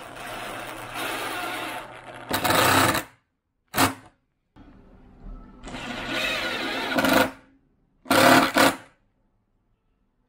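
Cordless driver driving screws into plywood: two long runs, each ending in a louder burst as the screw seats, with short bursts of the motor in between and near the end, then the tool stops.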